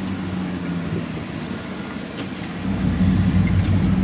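Kubota DC70 Pro combine harvester's diesel engine running steadily with a low drone while cutting rice. About two-thirds of the way in, a louder low rumble comes in on top.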